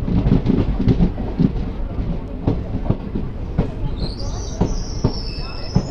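Passenger train wheels clattering over rail joints under a steady rumble, heard from an open coach door as the train pulls into a station, the clacks spacing out as it slows. About four seconds in a high, steady squeal from the braking wheels sets in.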